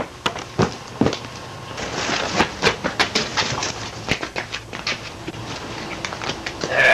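A rapid, irregular run of sharp clicks and knocks over a steady hiss, with a short, loud sound right at the end.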